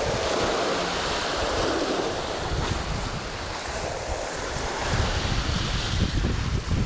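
Sea surf washing and breaking over a rocky shoreline, with wind buffeting the microphone in low gusts, strongest near the end.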